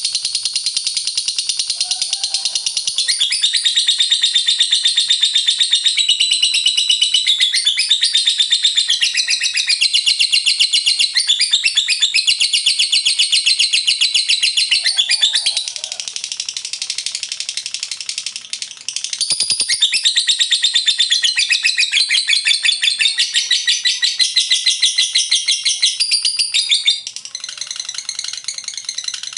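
Lovebird singing its long 'ngekek' chatter: a rapid, unbroken stream of shrill chirps, dropping in loudness about halfway through and again near the end.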